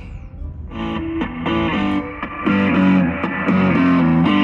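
Rock music with distorted electric guitar starting to play about a second in and getting louder, coming from the Boss Audio Bluetooth speakers on the motorcycle: the re-soldered speaker system is working again.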